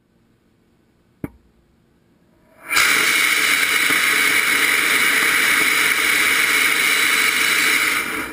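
A sharp click about a second in, then a sugar and potassium nitrate solid rocket motor lights and fires on a static test stand. Its exhaust makes a loud, steady hissing rush that holds level for about five and a half seconds, then dies away quickly as the propellant burns out near the end.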